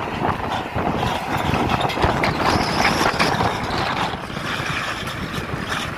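Large diesel engine of heavy equipment running steadily with a rough low rumble, and short clatters scattered through it.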